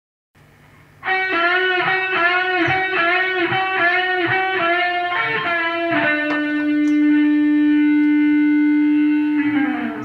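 Electric guitar music: a fast riff of repeated bending notes, then one long held note that slides down in pitch near the end.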